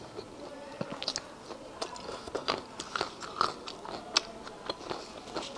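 Close-miked mouth sounds of a person chewing a mouthful of food with lips closed: irregular small wet clicks and crunches, several a second.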